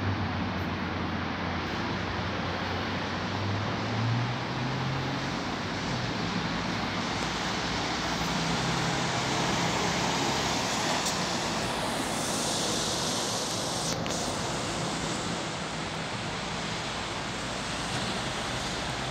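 Road traffic at a busy roundabout: cars and a lorry passing, with a steady wash of engine and tyre noise. A low engine hum swells and rises a few times as vehicles go by.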